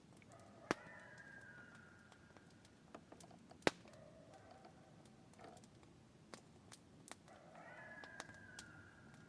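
Coyotes howling in the distance: two long howls that fall in pitch, one near the start and one near the end, with lower wavering calls beneath. Sharp pops from a crackling campfire come through over them, two of them louder than the rest.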